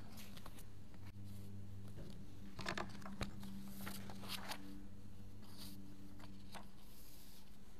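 Faint rustling and handling of papers at a wooden pulpit, with scattered soft clicks and shuffles over a steady low hum.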